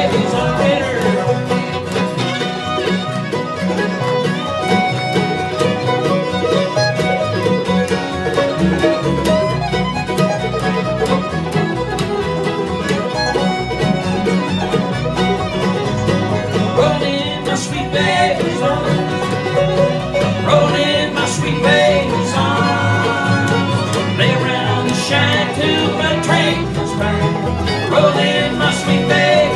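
A live bluegrass band plays an instrumental break with the fiddle to the fore over strummed acoustic guitar, banjo and upright bass.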